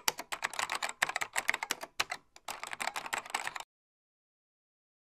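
Computer keyboard typing: a quick, uneven run of key clicks that stops about three and a half seconds in.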